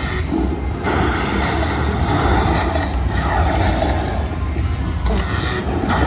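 Slot machine's win sounds playing over the dense, steady din of a casino floor.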